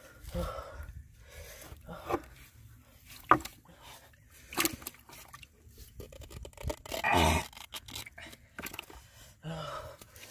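Scattered scrapes, rustles and knocks from hands handling a clay pot fish trap and untying its red cloth cover, with one sharp click about three seconds in and a louder scrape about seven seconds in.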